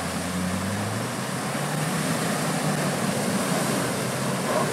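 Land Rover Defender's engine running while driving off-road, its low note shifting slightly in pitch, over a steady rushing noise.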